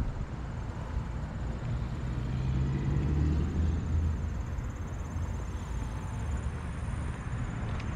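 Street traffic: a motor vehicle's engine running with a low rumble, strongest a few seconds in.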